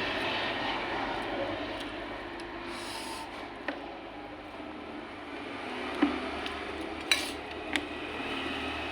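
Close-up eating sounds: chewing and mouth noises over a steady background hiss, with a few sharp clicks against the dishes from about halfway through.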